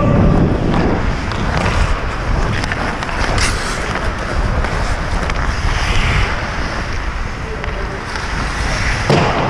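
Hockey skate blades scraping and carving across the ice, with wind rushing over the microphone as the skater moves; a single sharp click a little over three seconds in.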